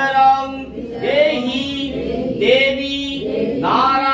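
A man singing a devotional song to the goddess Kali in long, held notes, phrase after phrase.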